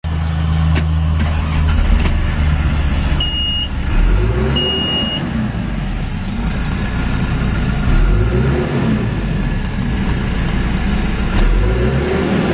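John Deere 410G backhoe loader's diesel engine idling, then revved up and let fall back three times, about every four seconds. Two short high beeps sound early on, and a few clicks in the first couple of seconds.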